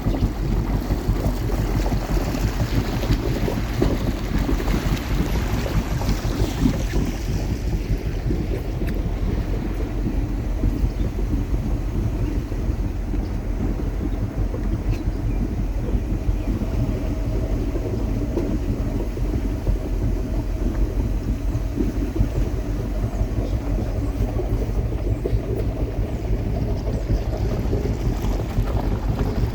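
Fishing boat's engine running steadily under way, a constant low hum, with wind rushing over the microphone.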